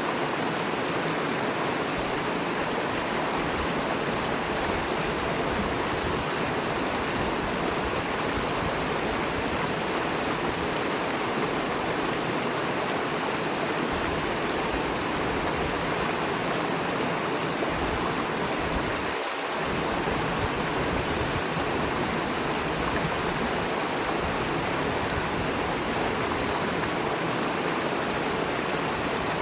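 Swift river water rushing over and between rocks, a steady full rush.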